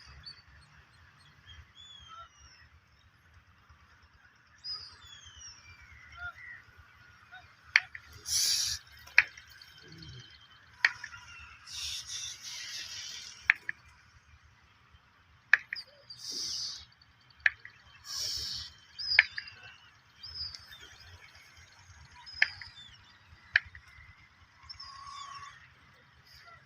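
Birds chirping in short, thin gliding calls. They come over a scattered run of sharp clicks and several short hissing bursts.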